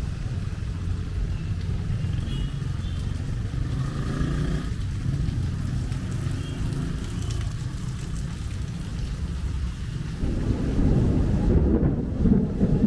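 City street ambience in rain: a steady low rumble of traffic. It grows louder about ten seconds in.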